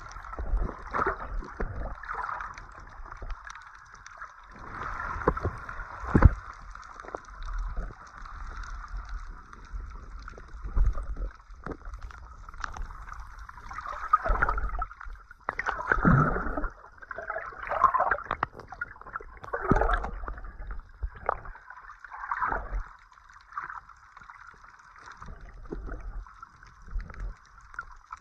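Sea water sloshing and gurgling around a snorkeler, with a steady hiss and scattered clicks and knocks.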